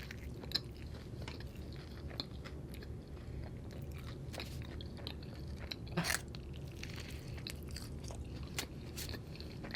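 A person chewing food with the mouth close to the microphone: scattered small wet clicks and crunches over a steady low hum, with one louder smack about six seconds in.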